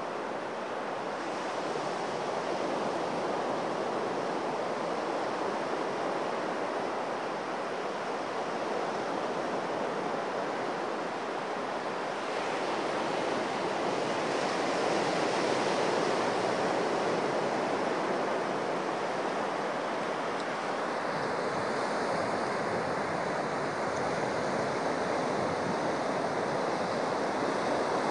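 Sea surf breaking and washing up a flat sandy beach, a steady rush of water that swells louder about halfway through.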